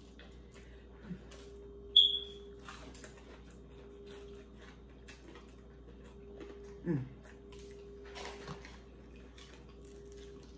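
Close-up eating sounds: crispy fried chicken being bitten and chewed, as many faint crunchy clicks, over a steady low hum. A short, sharp high squeak about two seconds in is the loudest thing, and a brief falling hum-like sound comes about seven seconds in.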